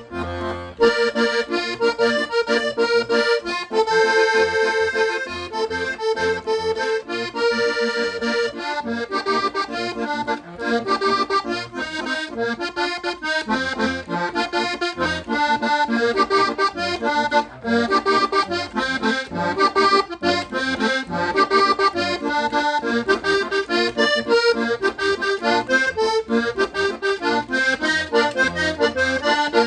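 Hohner Corona II Compadre button accordion, two reeds per button, playing a continuous tune with a quick, rhythmic run of notes. This two-reed sound is the one the player does not recommend for vallenato music.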